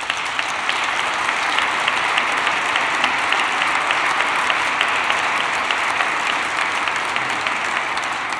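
Audience applauding, breaking out suddenly and holding steady, easing off a little near the end.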